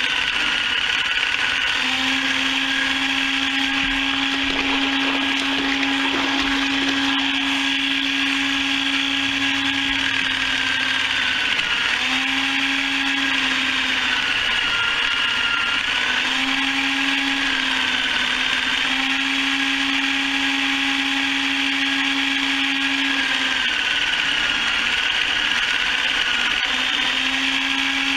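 Electric motor of a mechanical chicken plucker running steadily with a constant whine. Its pitch sags briefly several times as the load on it changes.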